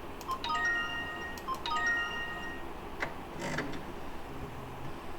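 An electronic chime plays twice, a short jingle of several ringing tones about a second long each, followed by a couple of sharp mechanical clicks.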